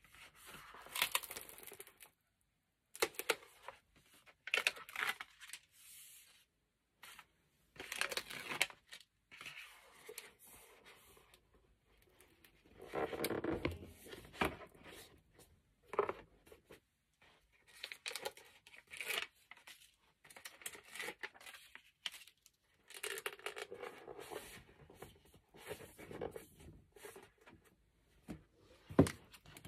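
Stiff white card of a flat-pack gift box being unfolded, bent along its creases and pressed into shape by hand, with loose paper being handled, in short bursts of rustling with gaps between. A sharp knock near the end.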